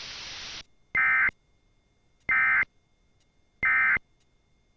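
Radio hiss cuts off, then a Sage EAS ENDEC sends three short, identical SAME data bursts, the end-of-message code that closes an Emergency Alert System relay.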